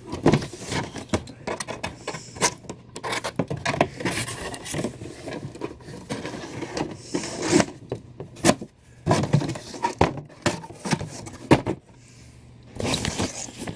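Cardboard box being handled and fitted together by hand: many scrapes, rubs and sharp taps of card against card, in quick irregular succession.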